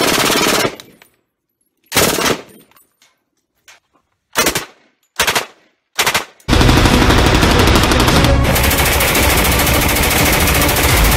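MG42 machine gun firing in bursts of very rapid fire: a burst that cuts off under a second in, then four short bursts of under half a second each, then from about six and a half seconds a long, unbroken burst.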